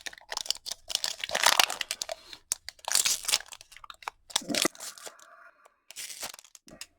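A foil Pokémon card booster pack being torn open and its wrapper crinkled, in several crackly bursts.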